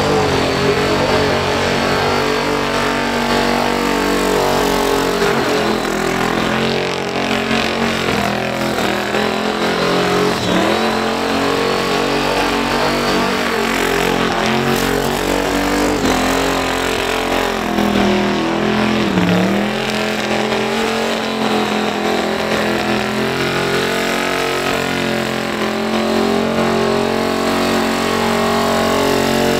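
Supercharged, twin-turbocharged Ford Cortina engine held at high revs through a burnout, spinning the rear tyres. The revs waver and dip and recover several times, most deeply about two-thirds of the way through.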